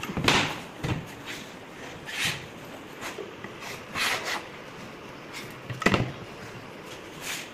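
Handling noises of a wooden drawer panel on a work table: a few short scrapes and light knocks, with a sharper knock about six seconds in.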